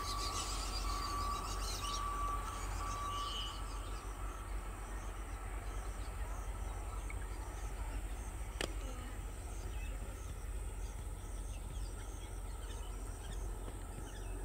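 Outdoor background noise with a steady low rumble. Birds call in the first three seconds, a repeated short high note with chirping above it. There is a single sharp click about two-thirds of the way through.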